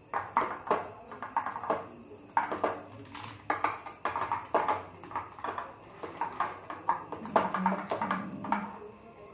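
Steel spoon scraping and tapping against a square metal box as soft homemade butter is pressed flat into its butter-paper lining, with irregular clicks and rustles of the paper.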